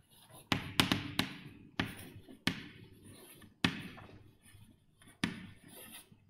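Chalk tapping against a blackboard while writing: about seven sharp, unevenly spaced taps, each with a short echo.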